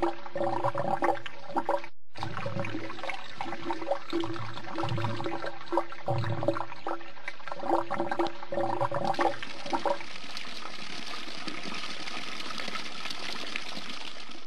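Water splashing and pouring in irregular bursts, then from about ten seconds in a steady rush of running water that cuts off suddenly at the end.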